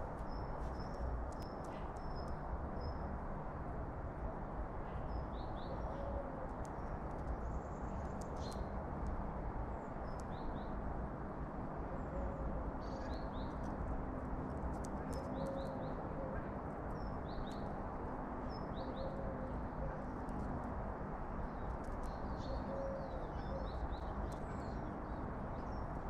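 Garden bird ambience over a steady low background hum: small songbirds chirping now and then, and a dove cooing faintly every few seconds.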